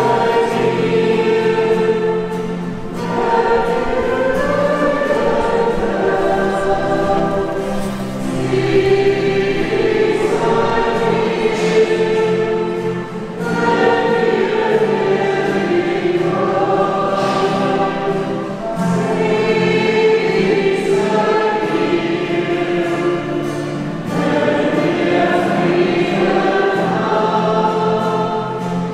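Choir singing a slow sacred piece in long phrases, with a short breath about every five seconds.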